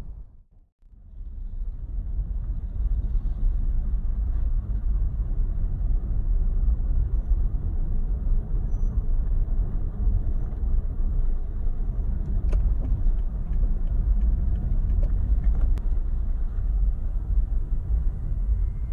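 Street traffic ambience: a steady low rumble, with a brief dip in level about half a second in.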